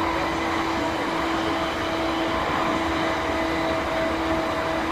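Running sound inside an E231 series 1000-number electric commuter train's motor car: steady rumble of wheels on rail with a whine from the traction equipment that holds one pitch throughout.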